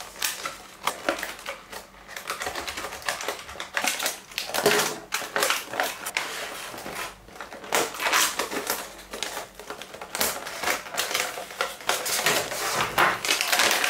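Stiff clear plastic blister bubbles crackling and crinkling as hands pry them off their cardboard backing and open them: an irregular run of sharp clicks and crunches.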